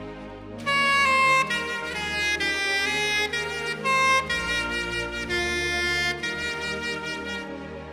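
Soprano saxophone playing a slow hymn melody in long held notes over a low sustained accompaniment. The saxophone comes in about half a second in after a short breath pause and pauses again briefly near the end.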